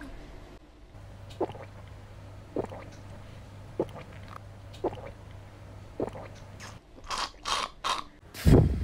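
Drinking through a straw from a glass cup: short gulping swallows about once a second, then louder slurping sounds near the end, and a low thump just before it ends.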